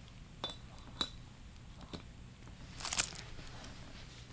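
A few light clicks and clinks of small metal transmission parts being handled, the loudest a short cluster about three seconds in, over a faint steady hum.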